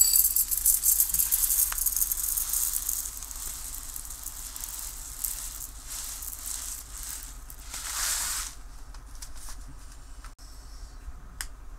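Dry risoni pasta pouring from its bag into a stainless-steel measuring cup: a dense rattle of tiny grains hitting metal, loudest at first and thinning out over a few seconds, with a shorter rattle again about eight seconds in.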